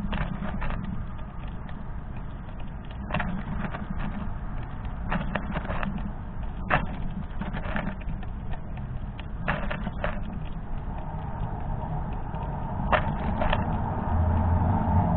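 A squirrel cracking and chewing sunflower seed shells: irregular sharp cracks and clicks, some in quick clusters. A steady low hum comes in near the end.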